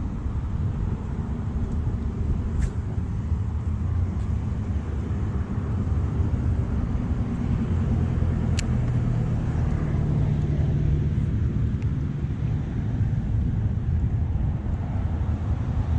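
Boat motor running steadily, a low drone, with a few short clicks.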